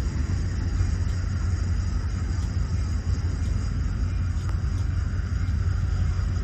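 Low, steady rumble of an approaching Canadian National diesel freight train.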